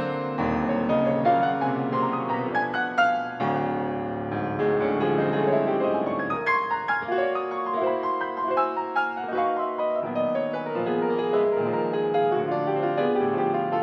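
Grand piano played solo in a classical style: a continuous, dense passage of many notes across a wide range.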